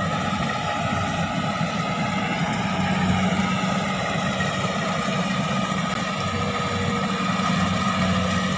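Crawler rice combine harvester's diesel engine running steadily, a constant drone with a thin whine above it.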